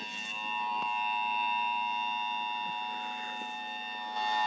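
Emergency Alert System attention signal during a required monthly test: a steady, unbroken two-tone alarm tone that holds one pitch throughout.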